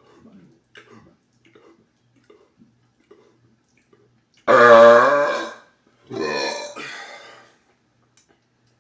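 A man's very loud burp about halfway through, lasting about a second, with a second, quieter throaty burst right after it. The loud burp measures about 123 decibels on a sound meter.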